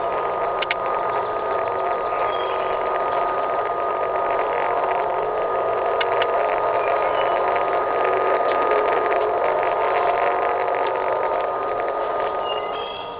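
Loud, steady mechanical-sounding drone coming from overhead in the sky, with a thin steady tone running through it; its origin is unexplained, and the recordist can see nothing in the sky. It drops in level near the end.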